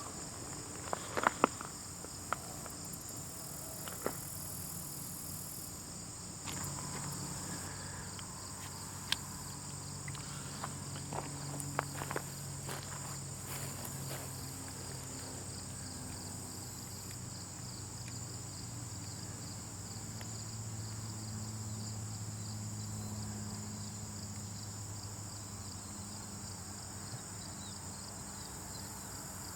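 Ant colony ambience: a steady high-pitched insect chirring with scattered tiny clicks and crackles. The clicks are thickest in the first couple of seconds and again around ten to twelve seconds in.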